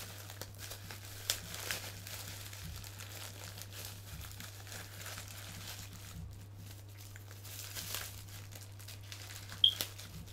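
Plastic packaging crinkling as it is handled and pulled away from an action figure, with a few sharp crackles, the loudest near the end.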